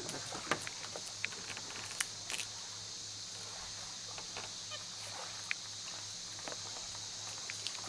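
Steady high-pitched insect chorus from the surrounding forest, with scattered small clicks and taps over it and a faint low hum underneath.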